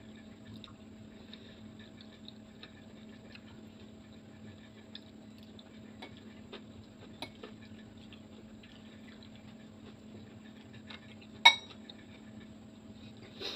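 A metal fork clicks and scrapes against a ceramic noodle bowl in small scattered taps. About two seconds before the end, one sharp clink rings out as the fork is set down in the bowl. A faint steady hum runs underneath.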